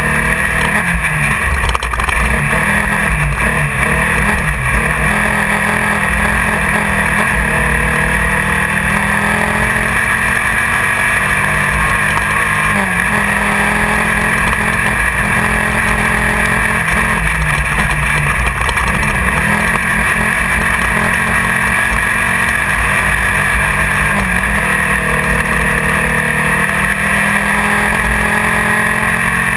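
Class 1600 off-road race car's engine running hard, heard from inside the car. Its pitch rises and falls over a steady rush of wind and rattle.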